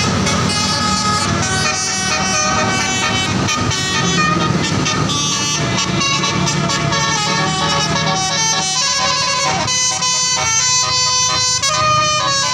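Indonesian tour bus's telolet horn, a set of multi-tone air horns playing a tune of quickly changing notes over the bus engine's running. The notes step cleanly from one pitch to the next, plainest in the second half.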